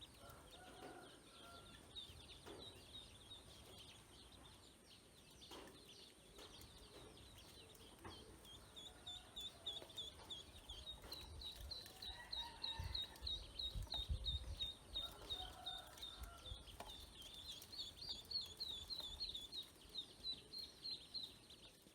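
Ducklings peeping: a long run of short high chirps, about three a second, growing louder and more continuous in the second half.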